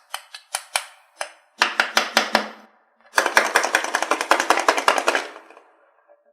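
Rapid mechanical clicking and rattling in bursts, about ten clicks a second. There are a few short bursts in the first second or so, a run of about a second, then a longer run of about two seconds.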